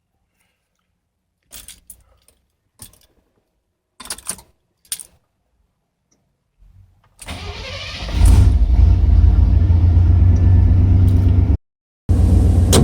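A few short clicks and knocks, then the truck's 5.7-litre V8 is cranked about seven seconds in, catches and runs loud and steady. The sound cuts out for half a second near the end, then the engine is heard running again.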